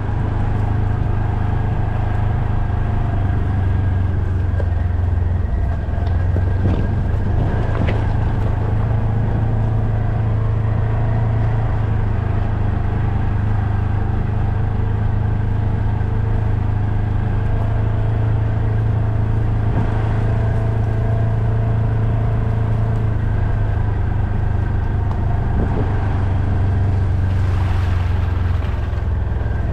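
Motor vehicle engine running steadily under way, a constant low drone with a few faint knocks along the way.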